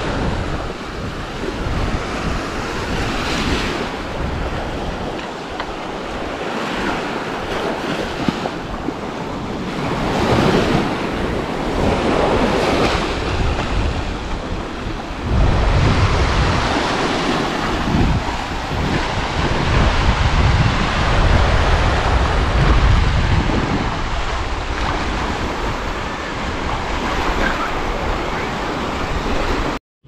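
Sea waves breaking and washing up a sandy beach, swelling and easing every few seconds, with wind buffeting the microphone.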